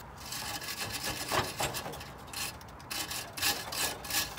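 Rusty exhaust clamp hardware scraping and grating in repeated strokes as a loosened clamp nut is worked off by hand.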